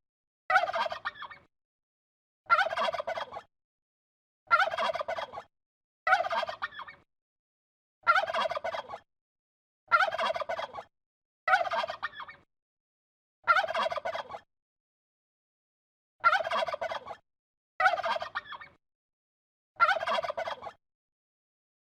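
Turkey gobbling, repeated about once every two seconds; each gobble is a short rattling burst of under a second, with silence between them.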